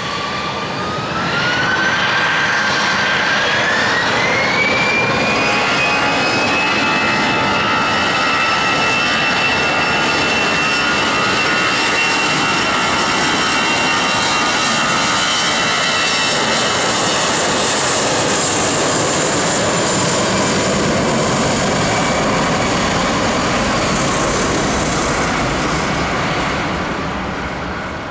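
Twin jet engines of an Airbus A320-family airliner spooling up to takeoff thrust. A whine climbs in pitch over the first few seconds, then holds high over a steady roar as the aircraft accelerates down the runway. The roar fades near the end.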